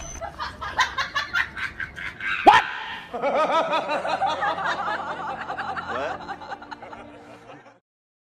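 Laughter: quick chuckling pulses at first, then fuller rhythmic laughing from about three seconds in that trails off and stops shortly before the end. A short, sharp squeak-like sound, the loudest moment, cuts in about two and a half seconds in.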